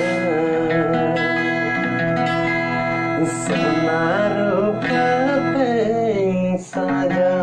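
A song with a sung vocal over guitar, played through a TAGG Bluetooth speaker as a test of its sound quality. There is a brief break in the music near the end.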